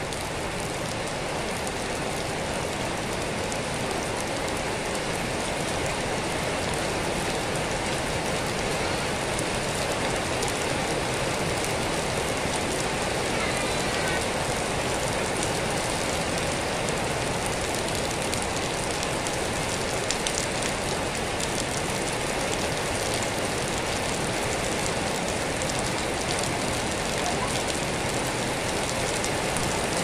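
Steady rain falling on a concrete yard and on broad plant leaves: a constant even hiss, flecked with the small ticks of single drops striking.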